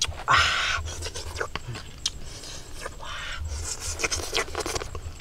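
Rustling and scraping as grilled octopus is handled over crisp romaine lettuce leaves, in two noisy bursts with scattered small clicks between.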